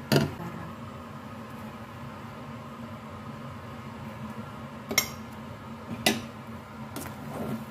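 Utensils clinking against a stainless steel soup pot: a sharp clink at the start, then two more about five and six seconds in and a fainter one just after, over a steady background hum.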